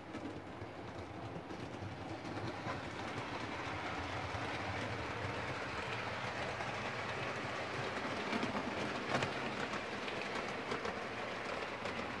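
OO gauge model locomotive (a Mallard body on a Flying Scotsman chassis and motor) running along the track with its coaches: a steady motor and wheel rumble with a few clicks as the wheels pass rail joints, growing louder over the first few seconds.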